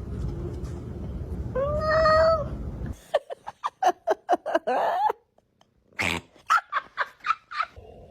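A cat meows once, held for about a second, then cats make quick series of short, clipped calls, several a second, in two runs broken by a brief pause.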